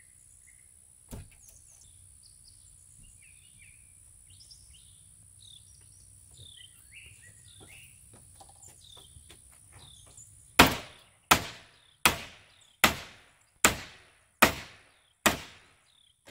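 Hammer striking the door frame of a newly installed exterior door: seven sharp blows, a little under a second apart, in the last third. Birds chirp quietly before the hammering, and there is a single knock about a second in.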